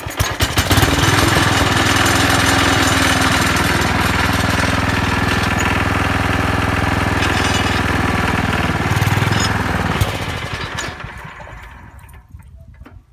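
The single-cylinder Tecumseh HH120 engine of a 1968 Sears Suburban 12 garden tractor running at high speed, then dying away about ten seconds in. The owner takes it that the carburettor needs adjusting.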